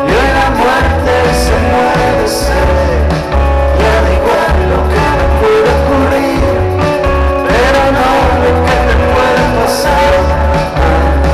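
Live indie rock band playing, with electric guitars, bass, drums and a sung vocal line, heard loud through a festival PA.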